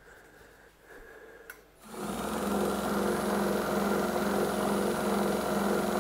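Surface grinder's electric motor switched on about two seconds in, quickly coming up to speed and then running steadily with a hum, driving the grinding wheel through a tightened poly-V belt. The vibration is reduced by the tighter belt but still present.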